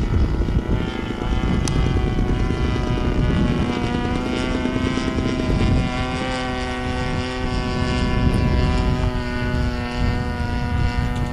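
Zenoah G26 single-cylinder two-stroke gas engine of a large-scale Hanger 9 Cessna 182 RC plane, turning a 16x8 propeller in flight overhead. It runs as a steady drone with many overtones.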